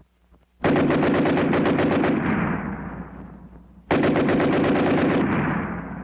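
Machine gun firing two long bursts of rapid automatic fire, the first starting about half a second in and the second just before the four-second mark, each tailing off gradually.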